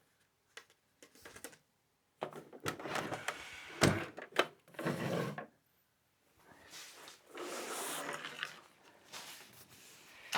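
Fabric and materials being handled and rubbed on a work table, in several rustling stretches, with a sharp knock about four seconds in.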